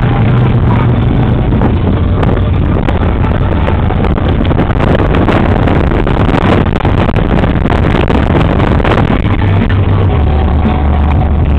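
A moving vehicle on the road, heard from inside the cabin: steady running and road noise, with music playing underneath.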